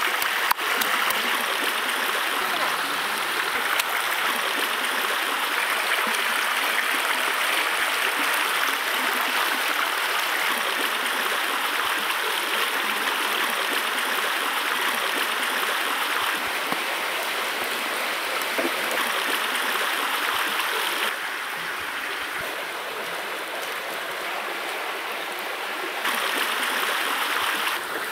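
Steady rushing of running water, like a stream. It drops a little in level about three quarters of the way through and comes back up near the end.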